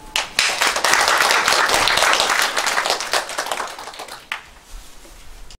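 Audience applause, starting about half a second in, dense for a few seconds and then dying away, with a single late clap near the end.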